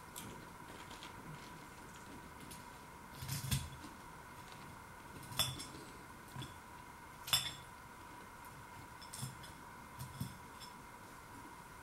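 Metal fork clinking against a bowl while picking up pieces of food. There are three sharp clinks about two seconds apart, then a few fainter ones near the end.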